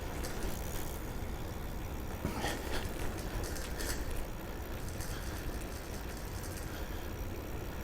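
Riding noise of a bicycle: a steady low rumble of wind on a bike-mounted microphone and tyres rolling, with a few faint clicks or rattles between about two and four seconds in.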